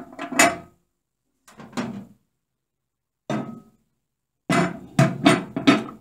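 Hard knocks and clacks from the sturdy turntable roller ring of an old Samsung microwave being handled and tapped in the oven cavity. A few single knocks are spread out, then four come in quick succession near the end.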